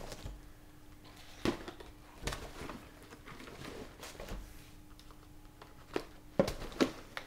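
Handling sounds as firecracker packaging is opened and moved about: scattered light knocks, clicks and rustles, a cluster of sharper taps near the end, over a faint steady hum.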